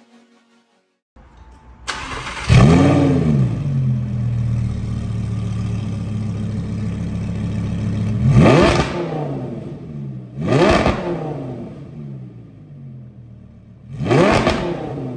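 Audi R8's V10 engine, breathing through a freshly fitted custom exhaust with the bumper off, cranks and fires up about two seconds in with a quick rev flare, then settles into an idle. It is then blipped three times, each a short rise and fall in revs.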